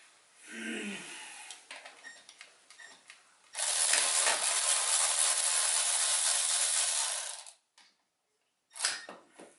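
Cordless electric ratchet running for about four seconds, spinning a bolt in the truck's engine bay with a steady, rapid rattle. A few light clicks and knocks from handling the tool come before and after.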